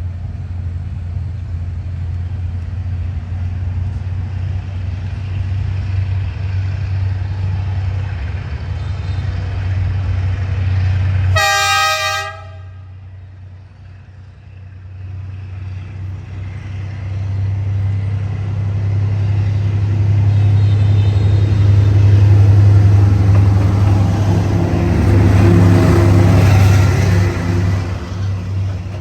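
Diesel train locomotive running with a steady low rumble. About eleven seconds in, a short horn blast is cut off suddenly and the sound drops away. It then builds again as a diesel locomotive draws closer and grows loud.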